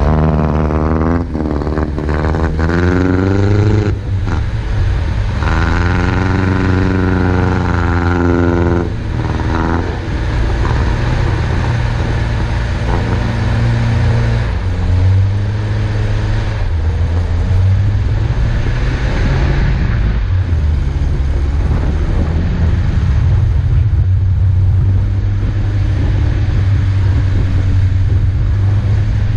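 Off-road 4x4's engine pulling through deep snow, revving up and easing off several times in the first ten seconds, then running at a steadier pitch.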